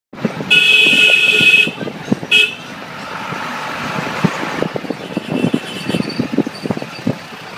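A horn sounds one long blast of about a second, then a short toot, over steady running noise from a moving vehicle with irregular knocks and clatter.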